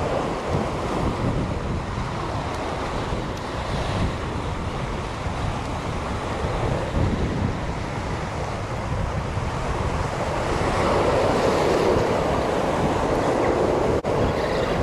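Surf washing against a rocky shore, with wind buffeting the microphone; the waves swell louder about two-thirds of the way through.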